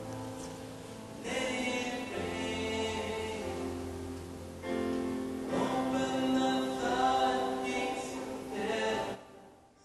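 Choral worship music: a choir singing slow, sustained chords, the piece fading out about nine seconds in.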